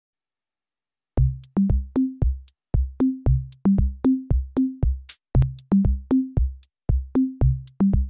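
Electronic intro music: a steady beat of sharp hits over short bass notes stepping between a few pitches, starting about a second in.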